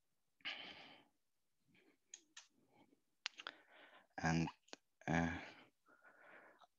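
Quiet pause in a spoken talk: a breath, a few sharp clicks, and two short voiced sounds from the speaker about four and five seconds in.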